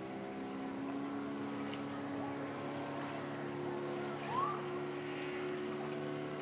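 Small motorboat's engine running steadily as it tows an inflatable tube, heard from a distance, with a brief rising call about four seconds in.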